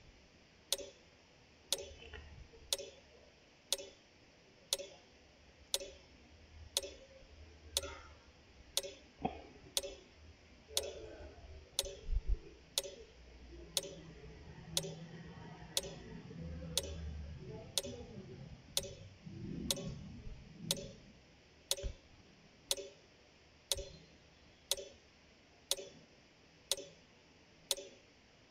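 Timer ticking steadily about once a second, counting off the time given to answer. Faint low background sounds come in about halfway through.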